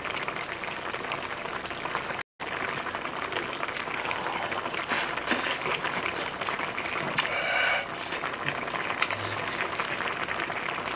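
Kimchi jjigae bubbling at a steady boil in a pot on a tabletop burner, with a brief dropout about two seconds in. From about halfway through, spoon clicks and eating mouth sounds sit over the boiling.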